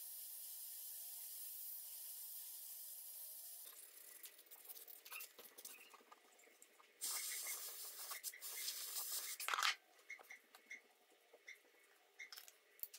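Compressed-air power carver running with a steady, faint hiss for the first few seconds, then cutting off. After that come scratchy rubbing of sandpaper on a wooden handle block and light handling clicks, with a louder stretch of rubbing about seven seconds in.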